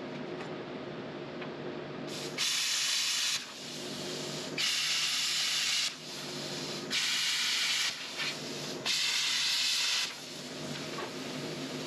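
Plasma cutter cutting steel auger flighting in four hissing bursts of about a second each, between roughly two and ten seconds in. A steady low hum runs underneath.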